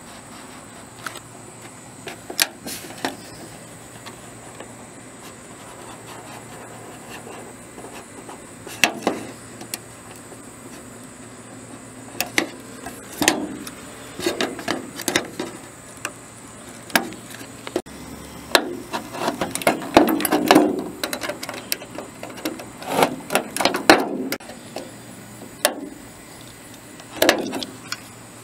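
A utility knife scoring and punching through the sheet-metal gutter bottom to cut a downspout outlet hole: irregular sharp clicks and scraping cracks, sparse at first and coming in clusters from about a third of the way in.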